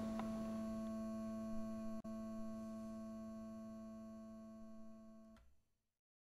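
A steady humming drone with several overtones, its lowest tone the strongest, slowly fading. There is a brief click about two seconds in, and the drone cuts off about five and a half seconds in.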